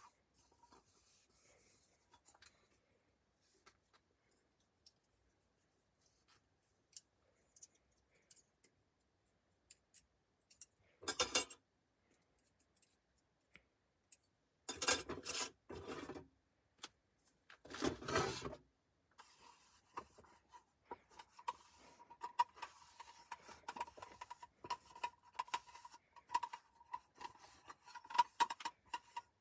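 A hand-cranked coffee mill with a ceramic burr grinding beans: a steady, fast, rhythmic rasping and ticking that starts about two-thirds of the way in. It is preceded by three short, louder noisy bursts near the middle, and before them by a few faint clicks.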